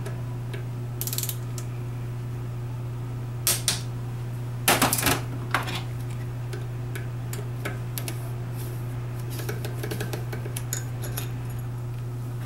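Steel hand tools and small injector parts clinking and clattering on a metal workbench during injector assembly, with sharp taps scattered through and the loudest clatter about five seconds in. A steady low hum runs underneath.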